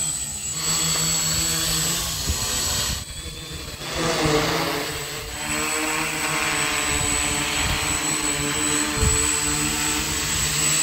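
F450 quadcopter's four brushless motors and propellers whirring steadily as it hovers, holding its position on its own. The whir dips briefly about three seconds in and comes back up about a second later.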